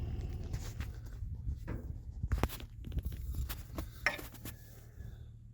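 Scattered light clicks and knocks of someone handling things inside a tractor cab before starting the engine, over a low steady rumble; the sounds thin out toward the end.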